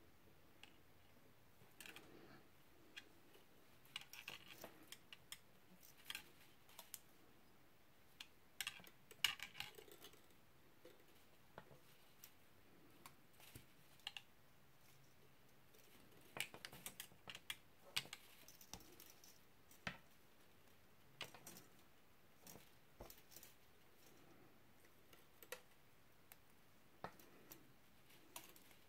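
Faint, irregular clicks and ticks of thin silver-plated copper wire being wrapped by hand around a thicker wire, coming in scattered clusters.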